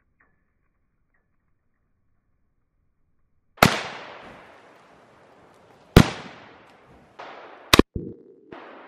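Near silence for about three and a half seconds, then sharp bangs about two seconds apart, each with a long echoing tail: .17 HMR rifle shots from a Savage A17 semi-automatic and exploding targets going off.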